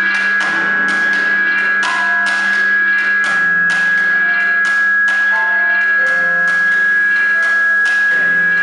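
Live experimental noise improvisation: a steady high drone tone and a low hum are held throughout, under sharp percussive hits about twice a second and short scattered pitched notes.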